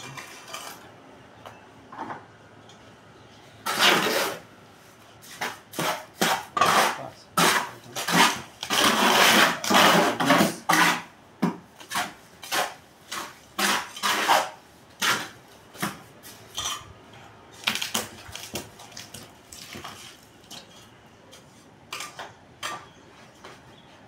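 Steel mason's trowel scraping and scooping cement mortar, a quick run of short metallic scrapes and clinks that is densest through the middle and thins out towards the end.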